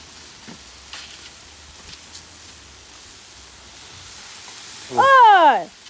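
Pork skewers sizzling steadily over hot charcoal on a kettle grill. Near the end comes a short, loud, high cry that rises and falls in pitch.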